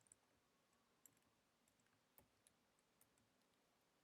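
Near silence: room tone with a few faint, isolated clicks from computer input while code is being edited.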